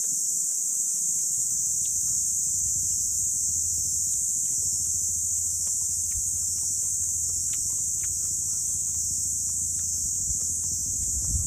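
Steady, unbroken chorus of cicadas shrilling high, with a constant low rumble beneath and a few faint scattered clicks.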